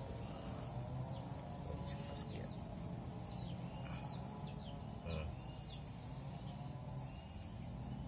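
Outdoor ambience: insects droning steadily on one high pitch, with birds giving short, falling chirps again and again. A brief burst of noise comes about five seconds in.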